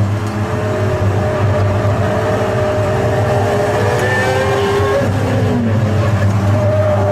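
V12 supercar engine running hard on the track, its pitch dipping near the start and again about five seconds in, then climbing as it pulls again.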